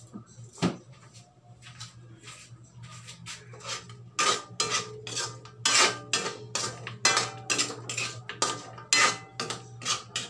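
Metal spatula clanking and scraping against an aluminium wok as chicken wings are stirred and tossed, a few knocks at first and then rapid, repeated strokes from about four seconds in.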